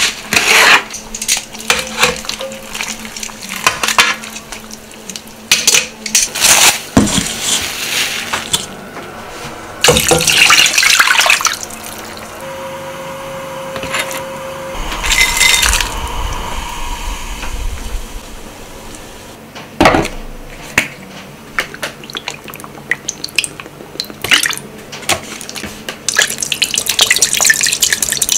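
Kitchen sounds of making ramen stock and chashu: raw chicken meat and dried sardines going into a pot of stock, with metal pots and utensils clattering and liquid splashing. Near the end, a dense crackle as soy sauce simmers in a small metal saucepan.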